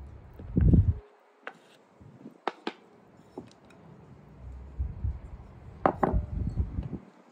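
Handling sounds of cake batter being made in a ceramic mixing bowl: a dull thump near the start, then a few scattered sharp clinks of bowls and a wooden spatula. About five seconds in comes a busier run of knocks and soft thuds as flour is tipped from a bowl into the batter.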